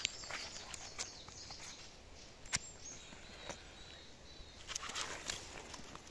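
Footsteps crunching through dry leaf litter and twigs on a forest floor, irregular sharp crackles with a cluster near the end. A faint high bird call warbles in the middle.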